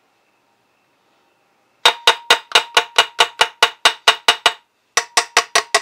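A rapid, even run of sharp metallic taps, about five a second, each with a short ringing note. It starts about two seconds in and pauses briefly near the end before going on.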